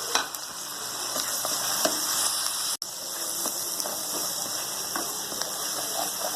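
Browned onions with ginger-garlic paste frying in hot oil in a kadhai: a steady sizzle with scattered small crackles and pops, as the ground spices go in. The sound cuts out for an instant a little before the middle.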